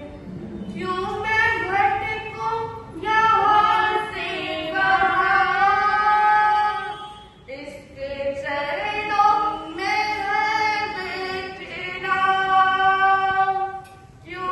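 A Jain nun singing a devotional bhajan unaccompanied, in two long phrases of held notes with a short break between them about seven seconds in.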